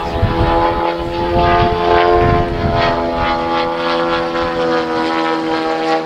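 Propeller aircraft engine running at a steady pitch, with wind rumbling on the microphone during the first half.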